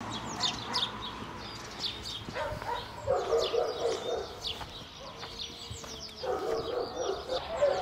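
Outdoor birdsong, many short falling chirps throughout. Twice, about three seconds in and again near the end, a dog barks in a rapid run of short barks, louder than the birds.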